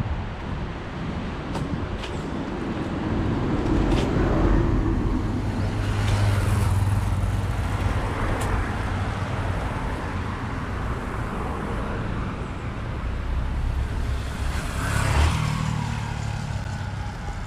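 Road traffic on a city street: a steady low engine rumble that swells as vehicles pass, once about four to seven seconds in and again near the end.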